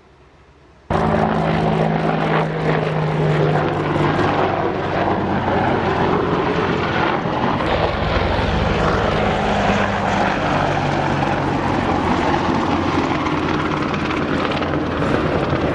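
A loud engine running steadily, starting abruptly about a second in, with a low hum that comes and goes over a dense noise.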